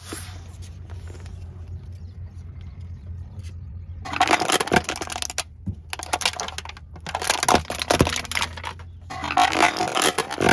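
Car engine running with a low steady hum. From about four seconds in come four bursts of dense crackling crunches, each about a second long, as aluminium drinks cans crumple and split under a car tyre.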